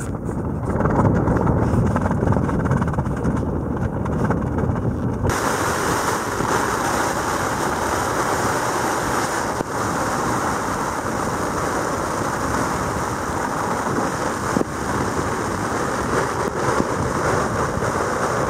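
Strong wind. For the first five seconds it is a low rumble of wind buffeting the microphone, then it switches abruptly to a loud, steady hiss of storm wind that holds without letting up.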